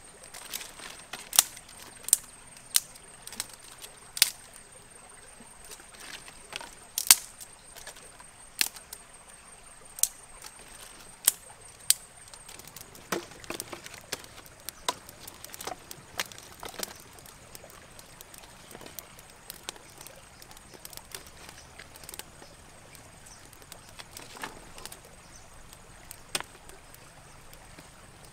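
Sharp cracks of dry wood being snapped and burning on a small open fire: loud single snaps about a second apart at first, then a quicker run of smaller cracks and a few scattered ones. Under the first half, a thin high steady tone stops about halfway through.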